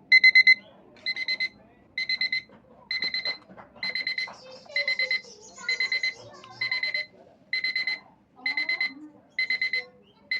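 Phone alarm ringtone in the classic digital alarm-clock style: groups of four quick high beeps, about one group a second, repeating throughout. The beeps drop in loudness about a second in.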